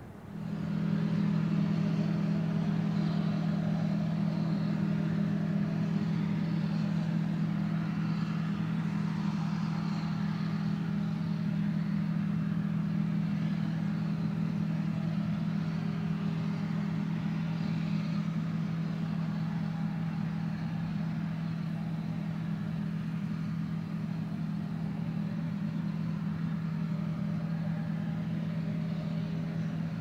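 John Deere combine harvester running steadily under load while harvesting wheat: a constant low engine and threshing-machinery drone with a strong hum. It comes in sharply just after the start and holds without change.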